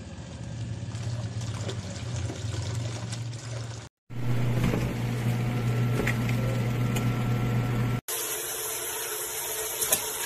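Mini fully automatic washing machine running with a steady motor hum and churning water. The sound changes abruptly at two edits, about four and eight seconds in.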